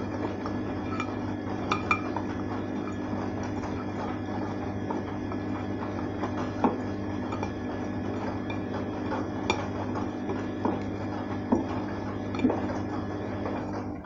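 Arçelik front-loading washing machine on a 60 °C cotton wash: a steady motor hum as the drum turns the wet, soapy load, with scattered clinks and knocks as the clothes tumble.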